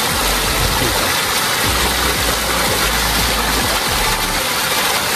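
Steady rushing noise, with a low rumble that comes and goes.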